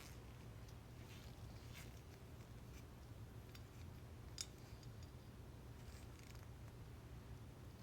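Near silence: a steady low hum with faint, scattered small clicks, and one sharper click about halfway through.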